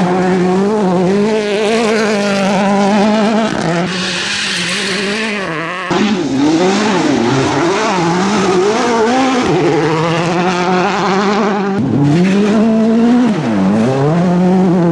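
Turbocharged four-cylinder World Rally Car engines revving hard, the pitch climbing and dropping again and again through gear changes and lifts, with tyre and gravel noise. The sound changes abruptly about four, six and twelve seconds in, as one car's run gives way to another.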